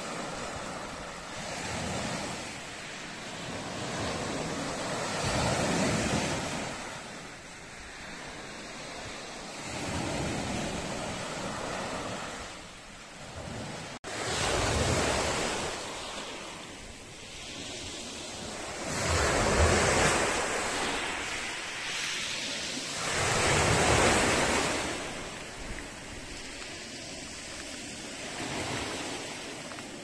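Black Sea surf: waves breaking on the shore in repeated swells, each building up and washing back, about one every four seconds. There is a split-second dropout about halfway through.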